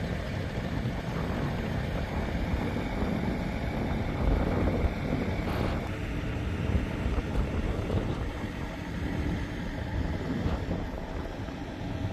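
A vehicle engine running steadily, with wind rumbling on the microphone.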